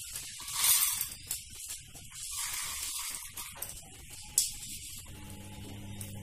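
Roasted chana dal poured from a steel plate into a steel bowl, the dry lentils rattling and hissing against the metal in several pours, with one sharp tap a little after four seconds.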